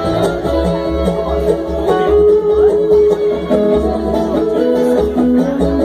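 A bluegrass string band playing live, instrumental: acoustic guitar and other plucked strings over a steady upright-bass pulse, with held melody notes.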